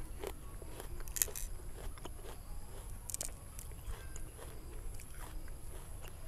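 Close-up chewing of a crisp, juicy wax apple (rose apple): wet crunches, the sharpest about a second in and again about three seconds in.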